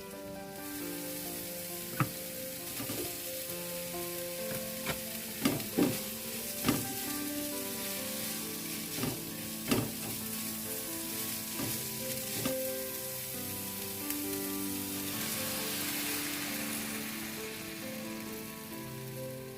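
Food sizzling in a hot pan as it is stirred, with sharp clicks of a utensil striking the pan several times in the first half; the sizzling grows louder about three quarters of the way through.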